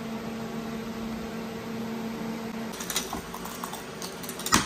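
Electric arc welding: a steady buzzing hum with hiss that cuts off about two and a half seconds in. A few light metal clicks follow, then one sharp metallic knock near the end.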